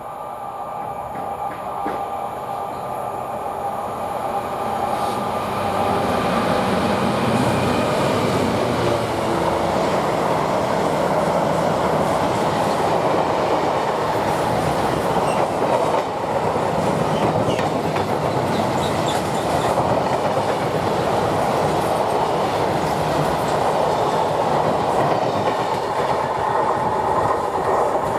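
Train running through, growing louder over the first several seconds, then a long steady rush of wheels on rail with clattering over the rail joints.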